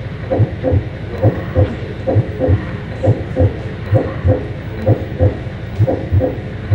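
Two fists pounding together in a heartbeat rhythm: paired thuds, lub-dub, about one pair every 0.9 seconds, over a steady low hum.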